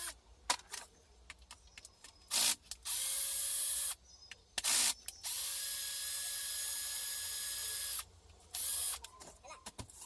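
Handheld power drill run in repeated bursts, each spinning up quickly, holding a steady whirr and stopping sharply: two longer runs of about one and three seconds and three short blips. Light clicks and taps of tools being handled come between the runs.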